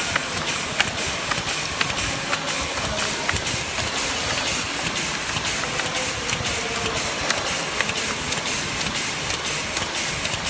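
Automatic plastic spork feeder and flow-wrap packaging machine running, with a steady mechanical hiss and a regular clicking about two to three times a second.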